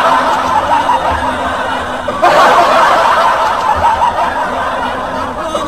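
Canned laugh track: a crowd laughing, cut in afresh about two seconds in.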